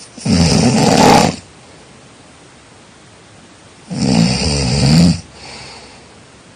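A person snoring: two long, loud snores about four seconds apart, each followed by a softer, shorter breath.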